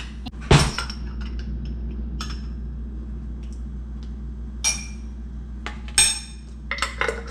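A metal spoon clinking against a glass jar and a small ceramic bowl as garlic is scooped out of the jar. There is one sharp knock about half a second in, then a few lighter clinks spread apart.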